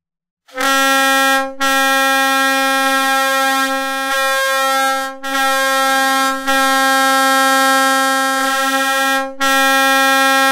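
Leslie Tyfon RS-25 train air horn sounding one steady, loud note in long blasts, briefly dipping about four times, used as a hockey goal horn.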